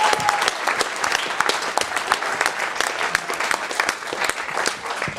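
A room of guests applauding: many hands clapping at once in a dense patter that thins out and fades near the end.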